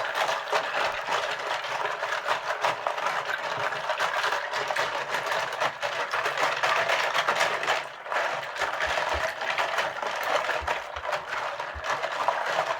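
Many plastic keycaps clattering and rattling together in a bowl of soapy water as they are stirred and swished around, with a busy run of small clicks over the sloshing water. It eases briefly about two-thirds of the way through.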